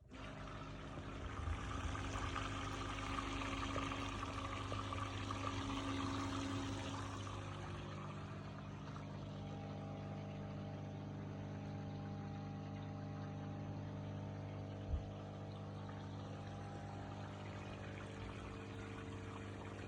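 Hoover Aquatronic 1100 vacuum cleaner switched on and running steadily with a motor whine and rushing air. It is hissier for the first several seconds, then settles a little lower, with a single short knock partway through.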